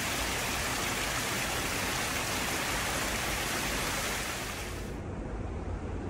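Small cascade of water splashing steadily down over rocks. The splashing cuts off sharply about five seconds in, leaving a low rumble.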